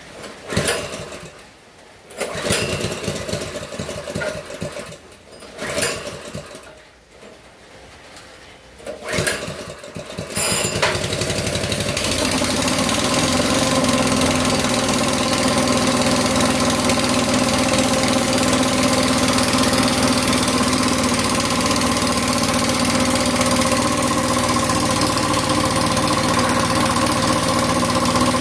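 Small petrol engine driving an air compressor: several short bursts as it is cranked and fires briefly, then it catches about ten seconds in and runs steadily.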